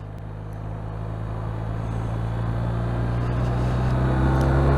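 BMW R 1250 RT's boxer-twin engine running on the move under wind and road noise, growing steadily louder as the bike picks up speed.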